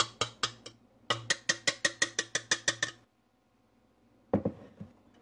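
A wire whisk striking the inside of a stainless steel mixing bowl: a fast, even run of metallic clicks, about six a second, in two runs with a short break, stopping about three seconds in. A single clunk follows about a second later.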